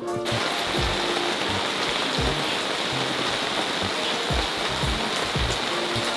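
Heavy rain falling steadily, a dense hiss that cuts in suddenly at the start, with background music and a steady low beat playing under it.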